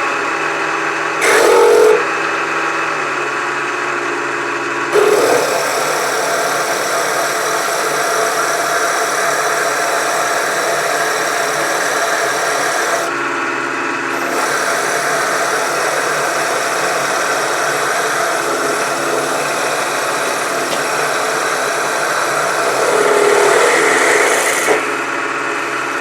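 Milling machine spindle running steadily with a steady whine while a letter U drill bores tap-drill holes into a cast iron mounting plate. The sound changes briefly a few times, where the drill bites or the footage jumps between holes.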